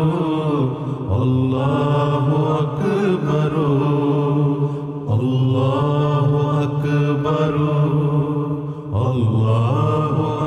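Men's voices chanting an Arabic qasida, long sung phrases of about four seconds, each separated by a brief pause for breath.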